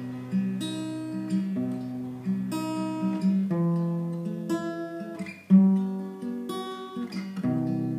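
Acoustic guitar played solo: chords strummed and picked, changing about every second, with one sharply louder stroke about five and a half seconds in.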